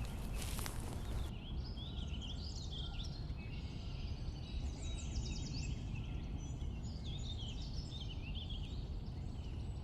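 Several songbirds chirping and trilling in short, overlapping calls, over a steady low background rumble; the first second or so is a noisy rustle before the calls come in.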